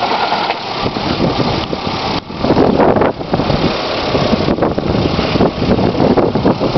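2005 Pontiac G6 engine running with an automatic transmission being shifted, giving a loud, continuous noise full of rapid knocks. This is the strange engine noise that the owner cannot place and takes for a loud transmission; the person watching the engine move suspects a motor mount.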